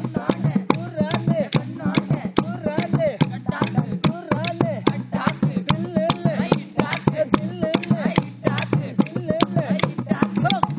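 Betta Kuruba tribal dance music on natural instruments: a drum beating quick, dense strokes over a steady low drone, with a wavering melodic line repeating above.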